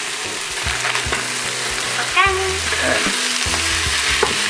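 Chunks of frozen pork and steak fat sizzling with onions and garlic in the hot oiled inner pot of an electric pressure cooker on sauté mode, stirred with a wooden spoon that scrapes and clicks against the pot. The frozen fat hitting the hot pot gives off steam.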